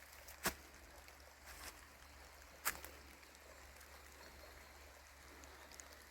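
Someone walking on a woodland path: a few sharp taps of steps in the first three seconds, over a faint steady hiss.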